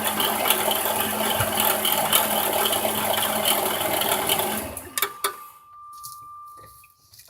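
2006 Dodge Grand Caravan's 3.8 L V6 running with a rattling, grinding whir from the alternator, the sign of a bad alternator bearing. About four and a half seconds in the engine is switched off and the noise dies away, followed by a couple of clicks and a steady beep lasting about two seconds.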